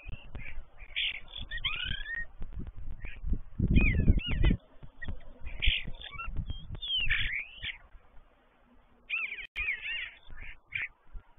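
Common starlings singing: a busy jumble of whistles, slurred rising and falling notes and short chattering phrases. A brief low rumble comes about four seconds in, and the song pauses for about a second past the two-thirds mark.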